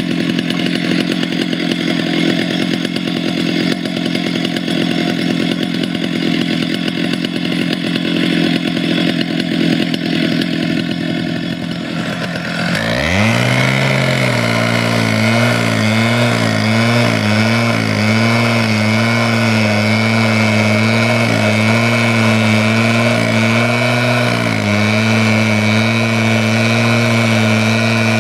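Two-stroke petrol cut-off saw running at high revs. About halfway the sound changes: the engine drops to a lower, wavering note under load, and a steady high whine sets in as the abrasive disc grinds through the steel rail.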